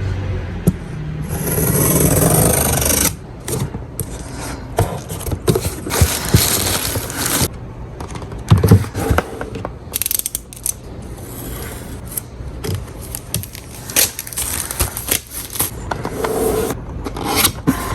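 Unboxing and handling of a DJI Mini 2 drone and its packaging: scraping and rustling, with many small clicks and knocks of plastic parts.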